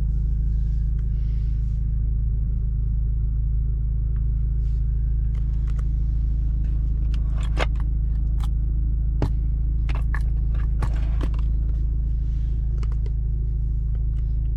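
Steady low rumble of the Audi S3's engine idling, heard inside the cabin. Through the middle come a run of sharp clicks from the car's interior controls being worked.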